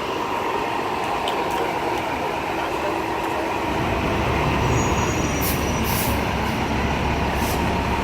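Heavy fire engine's diesel engine rumbling over steady city street noise, its low rumble coming in about halfway through. A few short hisses follow near the end.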